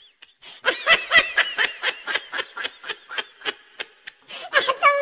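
High-pitched laughter: a quick run of short, squeaky giggling bursts, about four or five a second, starting about a second in.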